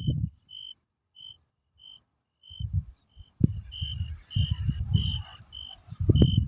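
Crickets chirping: short, evenly spaced chirps about every 0.7 s, joined from about halfway by a fainter, higher insect trill. Several bursts of low rumble come and go over them, the loudest near the start and end.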